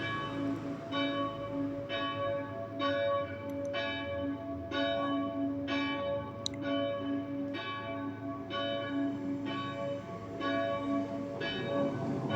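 Swinging church bells of the Stockerau parish church ringing in a festive peal. Fresh strikes come about every half second over a continuous humming ring.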